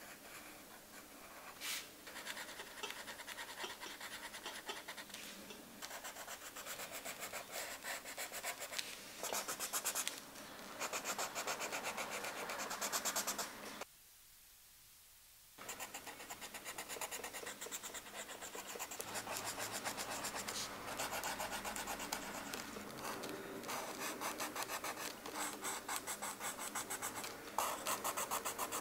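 Coloured pencil scratching across sketchbook paper in quick, repeated drawing and shading strokes, broken by a brief silent gap about halfway through.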